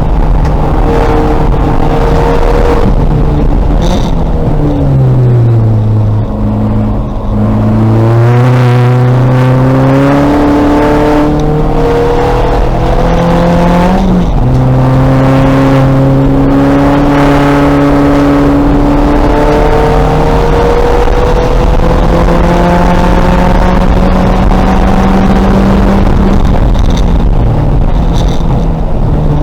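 2000 VW Golf race car's engine under hard running on track: the revs fall about five seconds in as it slows, then climb again, with a gear change and a drop in pitch about halfway, and the revs rising steadily through the second half.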